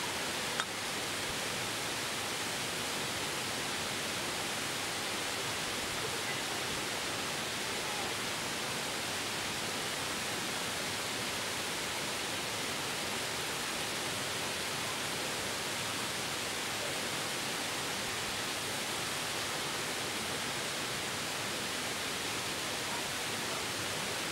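Steady, even rushing noise that runs without a break, with a single short click a little over half a second in as a ceramic lid is lifted off a pottery crock.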